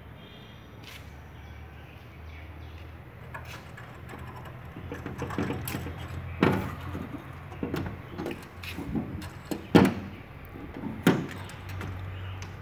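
Sharp knocks and clacks on the steel door of a railway coach, fitted with a sliding bolt latch, coming in an uneven run from about five seconds in, with the three loudest near six and a half, ten and eleven seconds, over a steady low hum.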